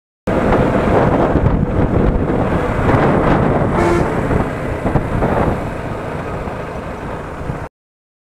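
Wind rushing over the microphone with engine and road noise from a KTM Duke motorcycle riding in traffic. A short horn honk sounds about four seconds in. The sound starts abruptly just after the start and cuts off abruptly near the end.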